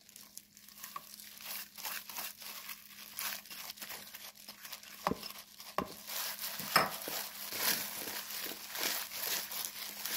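A hand in a thin plastic glove mixing crisp roasted seaweed flakes through seasoned blanched scallions in a plastic bowl: irregular crinkling and rustling of the glove and the dry seaweed. It grows busier and louder about six seconds in, with a few sharper clicks.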